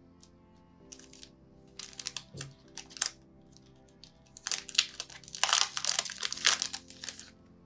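Clear plastic packaging sleeve crinkling as hands handle it, in short bursts around two seconds in and then loud, near-continuous crinkling from about halfway to near the end. Soft lofi music plays underneath.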